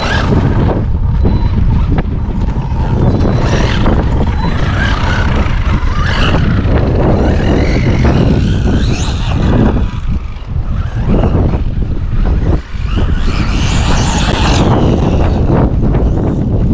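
Traxxas Maxx V2 RC monster truck running on 4S, its electric motor and gears whining up and down in pitch as it speeds up and slows, several times over. Heavy wind noise on the microphone rumbles underneath throughout.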